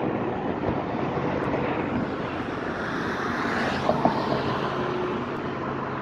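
Road traffic going by: a steady rumble with a vehicle passing louder about three to four seconds in.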